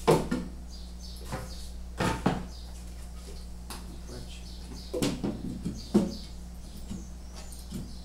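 Knocks and bumps of kitchen cabinet kit panels being handled and fitted into the cabinet carcass: a handful of separate thumps spaced a second or more apart, over a steady low hum.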